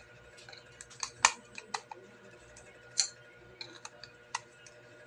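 Irregular small clicks and taps of a screwdriver working a screw into an alarm padlock's battery cover. Two sharper clicks stand out, about a second in and about three seconds in.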